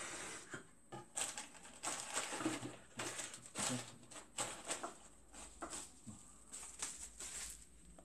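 Rummaging through a box of small printer spare parts, pieces clattering and rustling against each other in irregular bursts, with a short pause about four seconds in.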